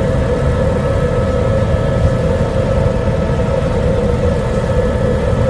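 Helicopter in flight, heard from inside the cabin: a loud, steady drone of engine and rotor with a low rumble beneath and a few steady higher tones.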